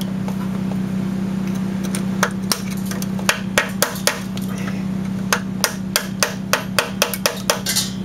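A screwdriver tapped against the steel heater box of a 1971 VW Beetle to chip off the old, stuck exhaust gasket: a series of sharp metal taps starting about two seconds in and quickening to about three a second in the second half, over a steady low hum.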